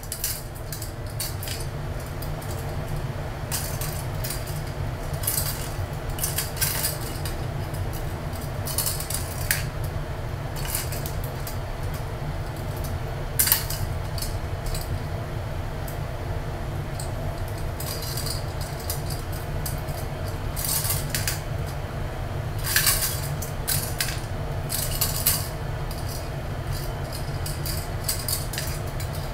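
Small plastic cat toy clicking and clinking against a ceramic tile floor as a kitten bats it around, in irregular clusters of sharp taps, over a steady low hum.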